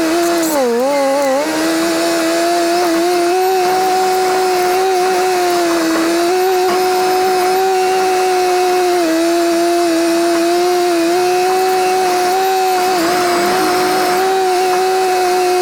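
Engine of a small Komatsu D21P bulldozer running hard with a steady high drone. Its pitch sags briefly about a second in, and a little again a few times later.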